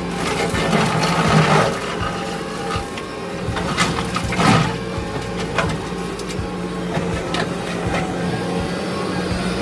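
Kubota SVL65 compact track loader's diesel engine running steadily while working a brush cutter, with irregular sharp cracks and knocks of brush and branches being hit.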